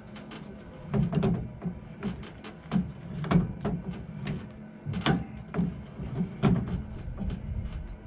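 Irregular clicks and knocks from a 2009–2014 Ford F-150's underbody spare-tire hoist being cranked with the jack rod. The spare lowers on its steel cable until it rests on the ground.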